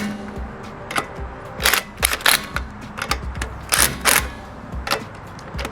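Sharp metallic clicks from hand tools working the wheel lug nuts, coming irregularly, some in quick pairs.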